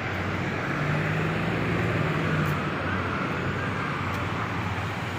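Steady city street traffic noise, with the low hum of a double-decker bus's engine running.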